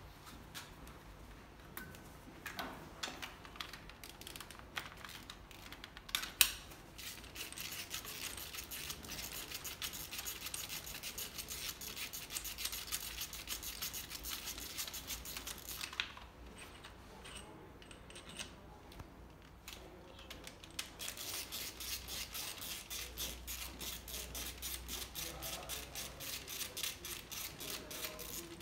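Ratchet wrench clicking in long runs of rapid small ticks as the compression-gauge adapter is worked out of one cylinder and into the next on the cylinder head, with a few sharper knocks in the first seconds and a short lull in the middle.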